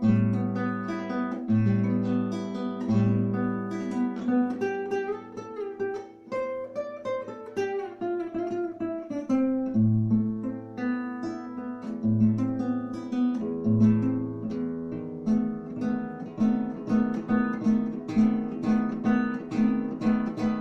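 Acoustic guitar playing instrumentally, with chords and picked notes and a descending run of notes in the middle.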